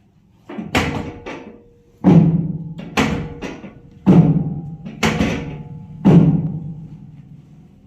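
A series of loud hollow thumps, about one a second with some in quick pairs, each ringing briefly as it dies away.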